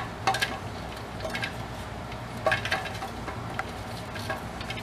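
Scattered light metallic clicks and clinks of hand tools working on a motorized bicycle's fuel line and its copper-wire wrap, about eight short strokes with no steady rhythm, over a faint steady low hum.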